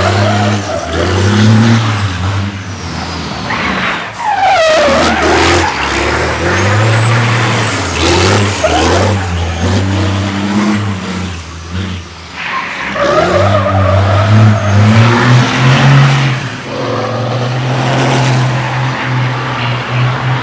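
An 1100 bhp racing semi-truck drifting: its engine revs rise and fall again and again, with its tyres squealing and skidding on the asphalt.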